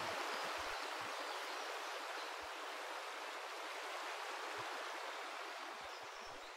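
River water rushing over rocks, a steady hiss that slowly fades toward the end.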